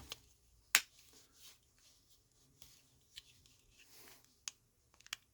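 A few sharp plastic clicks from a Toyota key fob being handled and its parts fitted back together: one loud click just under a second in, then fainter ones spaced out near the end.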